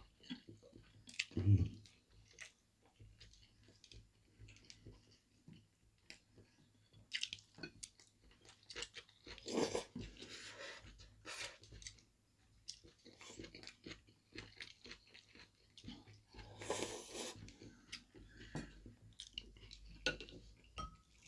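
Faint chewing and crunching of food by people eating, with scattered light clicks of chopsticks against ceramic bowls and a few louder bites.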